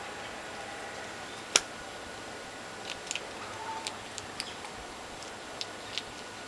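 Steady hiss with one sharp click about a second and a half in, followed by a scattered run of light clicks and ticks.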